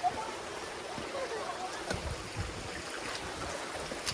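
Creek water running steadily over rocks, with a few low thumps.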